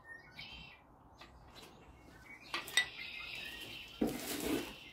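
Metal clinks and hammer taps on a stripped Dodge 360 Magnum V8 block as a part is tapped out with a dowel: a few light ticks, then two sharp clinks about two and a half seconds in that ring on briefly, and a heavier knock about four seconds in.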